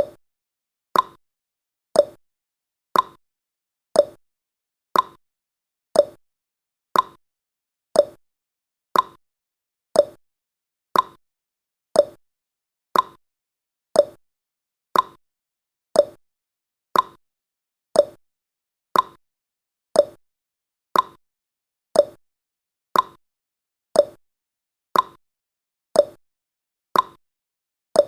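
Countdown timer's ticking sound effect: one short, sharp tick every second, evenly spaced, with silence between ticks.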